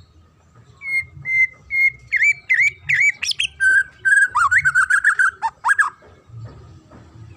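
White-rumped shama (murai batu) singing. It opens with three clear repeated whistles, then gives quick bending whistles that swoop up high, and ends in a fast run of lower notes that stops about six seconds in.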